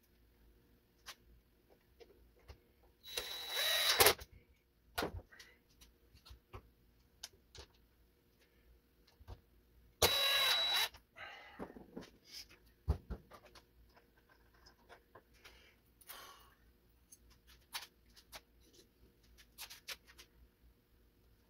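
A small electric motor runs in two short bursts of about a second each, with a steady high whine, and scattered light clicks and knocks of small parts being handled between them.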